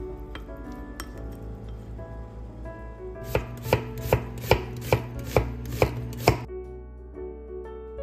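Chef's knife chopping eggplant on a wooden cutting board: about eight firm knocks, a little over two a second. They start about three seconds in and stop about three seconds later.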